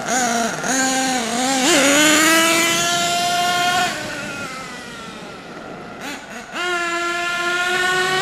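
Small nitro glow engine of a HotBodies Lightning GTX2 twin-engine RC truck being revved high: it rises and holds for a couple of seconds, drops back to a lower idle, then revs up again and holds near the end. It is being blipped to clear out an engine that has not been run for a long time.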